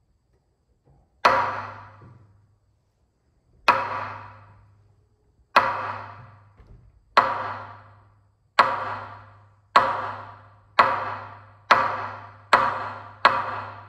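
Hokku, a large Japanese temple barrel drum, struck with a single wooden stick: about ten strokes, each ringing out and dying away, coming faster and faster as the gaps shrink from over two seconds to under a second. This is the drum signal that calls a Zen community to morning sutra chanting and zazen.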